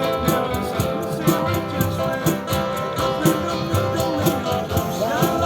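Music: guitar over a steady beat with long held notes, and a little singing.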